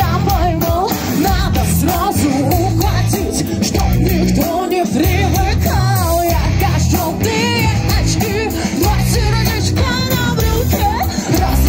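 A live rock band playing loud through a PA: a singer's voice over electric guitar and a drum kit.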